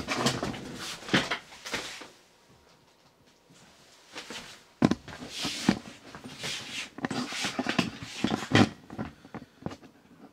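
Handling noise as the camera and robot are carried down to the floor: irregular rustles and bumps, with a sharp knock about five seconds in.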